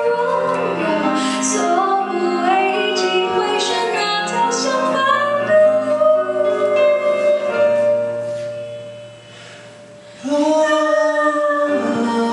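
A woman singing a slow pop ballad live into a microphone over an instrumental backing. The music sinks into a brief lull about eight seconds in, and the next sung phrase comes in about two seconds later.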